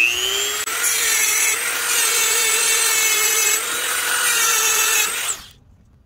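Dremel rotary tool spinning up and grinding into the stainless steel handle of a balisong trainer, deepening the indents where the latch pin seats so the knife will lock. A high, steady whine with a rasping metal-grinding hiss, rising in pitch at the start and cutting off about five seconds in.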